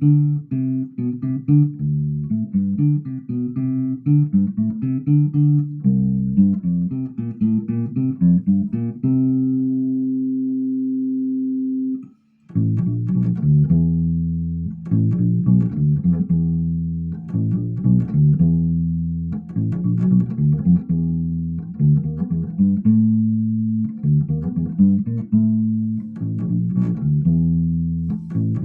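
HB PB50 electric bass played clean through a small Fender Rumble 15 W amp, picking out a melody note by note. About nine seconds in one note is held for a few seconds, cut off for a moment, and then the playing resumes.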